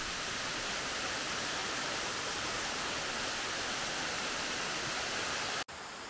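Steady rushing of water from a waterfall over ten metres high, an even hiss-like rush. It breaks off suddenly near the end, giving way to a quieter hiss.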